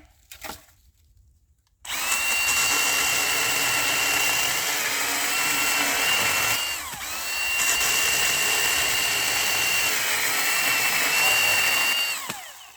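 Milwaukee battery-powered chainsaw starting straight away at full speed, with no pull-start or idle, and running with a high motor whine over the chain noise while cutting wood. About seven seconds in it briefly slows and picks up again, its pitch sags slightly under load, and it stops near the end.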